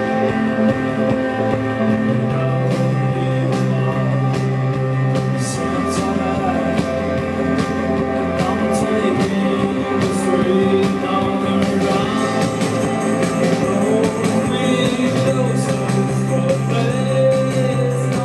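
Live rock band playing: electric guitars and bass guitar over a drum kit, with cymbal hits.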